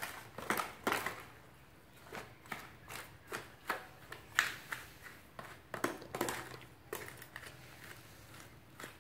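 Sliced green mango being picked through by hand in a plastic tub lined with a plastic bag: irregular light crinkles and clicks, about one or two a second.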